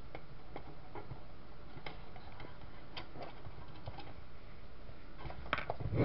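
Scattered light clicks and ticks from hands handling the metal case and rear connector panel of an HDTV switcher, over a low steady hum. The clicks grow into a louder clatter near the end.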